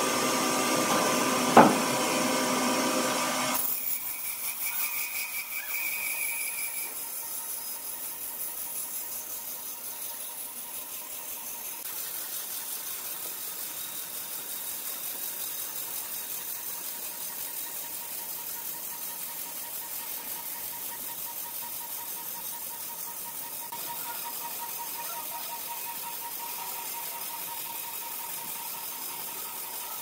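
Sawmill machinery running with a steady mechanical hum. It is louder for the first few seconds, with a sharp knock about a second and a half in, then drops abruptly to a quieter run with a thin steady whine.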